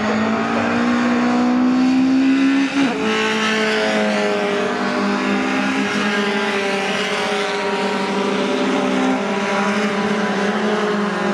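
Racing pickup trucks' engines at full throttle, several at once, passing close by. Their pitch rises, drops suddenly with a brief dip about three seconds in, then holds steady.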